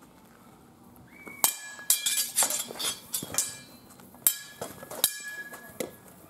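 Steel swords and bucklers clashing in sword-and-buckler sparring: a rapid flurry of sharp metallic clangs with a ringing tail, then a few more single clashes about a second apart.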